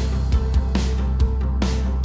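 Background music: an upbeat band track with a steady beat, sustained bass, drums and guitar.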